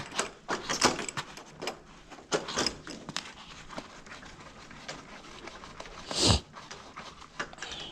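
Scattered light clicks and knocks of hands handling copper refrigerant line fittings, with one louder thump about six seconds in.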